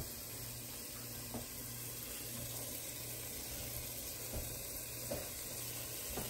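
Shredded cheddar cheese faintly sizzling as it is sprinkled into a hot stainless-steel pot to melt and crisp. It is a steady hiss with a few soft taps.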